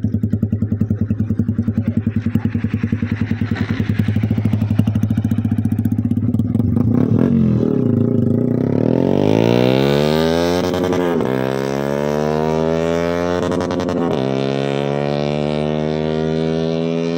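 Yamaha R25 parallel-twin motorcycle with a full-system aftermarket exhaust, running loud and steady at first. About halfway through it accelerates hard: the engine note climbs, drops sharply at each gear change, then climbs again several times.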